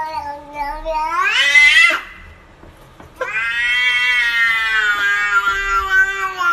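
A domestic cat giving two long, drawn-out meows. The first is already going, rises in pitch and cuts off about two seconds in. The second starts about a second later and is held for about three seconds, slowly falling.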